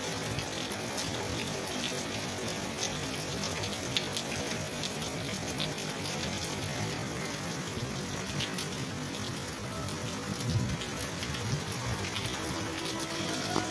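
Rain falling steadily, with scattered sharp ticks of individual drops striking hard surfaces.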